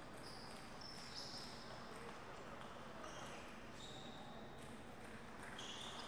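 Table tennis ball being bounced lightly on a paddle before a serve: faint taps over quiet hall ambience.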